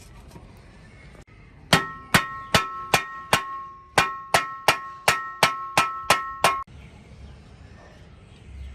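Bicycle bell rung in quick repeated dings, about fourteen strikes in two runs with a short gap between them. The same ringing tone carries on between strikes and cuts off suddenly at the end.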